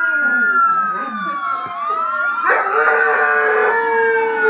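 Emergency vehicle sirens wailing in several overlapping, slowly falling glides, with an Alaskan malamute howling along to them. The howl is held long and steady from a little past halfway.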